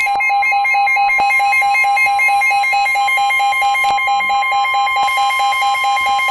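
Emergency weather alert tones: a rapid electronic beeping alarm with a steady high tone under it. The steady tone is the NOAA Weather Radio 1050 Hz warning alarm tone, which signals that a warning message is about to follow.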